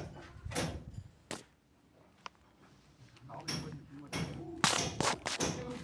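Irregular sharp knocks and clatter, which stop for about two seconds in the middle and then come back more thickly.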